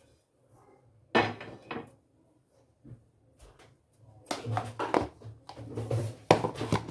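Kitchen dishes and utensils clattering and clinking: one sharp clatter about a second in, then a busy run of knocks and clinks through the second half.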